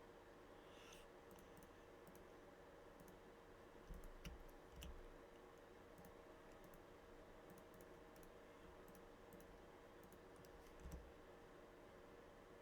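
Faint scattered computer mouse clicks and key taps over a low steady hum, with a couple of soft thumps.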